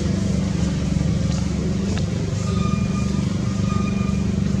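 A steady, unchanging engine drone, like a motor vehicle idling, with a few faint short high tones in the second half.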